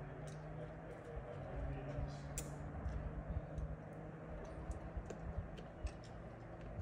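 Faint, scattered light clicks and ticks over a low, steady background murmur.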